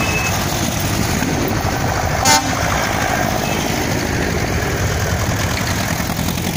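Vintage tractor engines, an Ursus C-328 among them, running steadily as the tractors drive past one after another. A short horn toot sounds about two seconds in.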